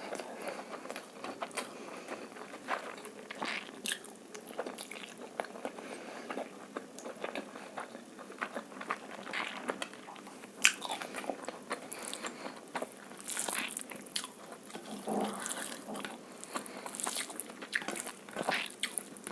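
Close-miked eating of egg fried rice and chilli chicken: irregular biting, chewing and crunching with many small clicks, and one sharper click about ten and a half seconds in.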